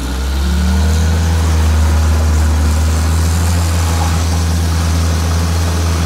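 Heavy equipment engine throttled up and held at a steady high run, under load as the skid steer tries to pull the Lull Highlander 844 forklift out of deep snow.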